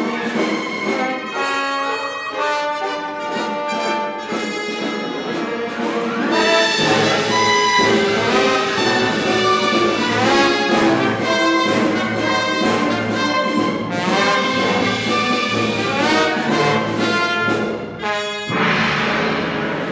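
Symphony orchestra playing loud, with brass to the fore; the music swells fuller and louder about six seconds in, breaks off briefly near the end, and goes on into a held chord.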